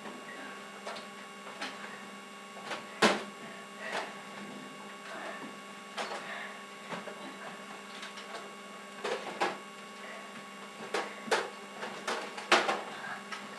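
Scattered sharp clicks and knocks, the loudest about three seconds in and several close together near the end, over a steady electrical hum.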